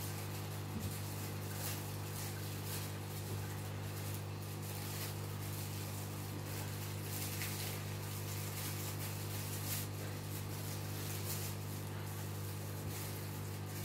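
Aquarium filter pump humming steadily at a low, even pitch, with a faint irregular crackle of moving water and bubbles over it.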